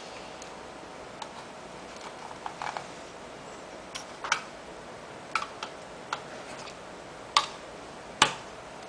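IBM Travelstar 20GB laptop hard drive running with a faint steady hum, broken by irregular sharp clicks; the loudest two come near the end. The drive is said to be making an abnormal buzzing noise.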